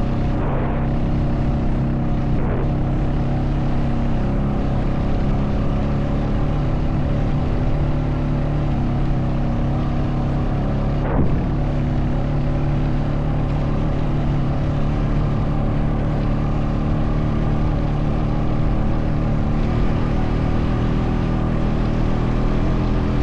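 Honda Foreman 520 ATV's single-cylinder engine running steadily under the load of towing a disabled ATV, its pitch shifting slightly a few times. There is a brief knock about eleven seconds in.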